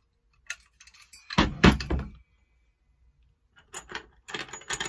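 A two-stroke bike engine's metal bottom end set down on a countertop, giving a few heavy knocks about a second and a half in. Near the end, loose steel cylinder studs clink and jingle together as they are picked up.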